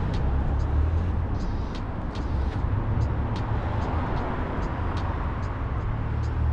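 Steady low rumble of road traffic close by, with light ticks about twice a second.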